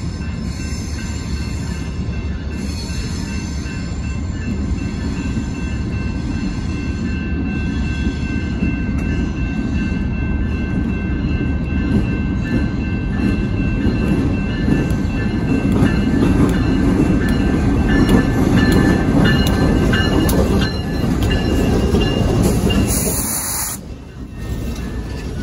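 Canadian Pacific diesel freight locomotives approaching and passing close by, their engines rumbling louder as they near, loudest just before they go by. The sound dips sharply near the end as the locomotives pass and the freight cars follow.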